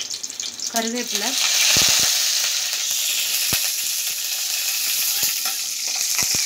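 Curry leaves dropped into hot groundnut oil already frying mustard seeds, urad dal and dried red chillies. They set off a loud sizzle about two seconds in, which carries on steadily as the tempering fries. A metal ladle clicks against the pan a few times.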